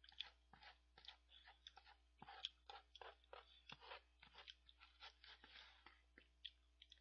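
A person chewing a mouthful of spicy instant cup ramyeon close to the microphone: a run of small, irregular crackling mouth sounds that thin out near the end.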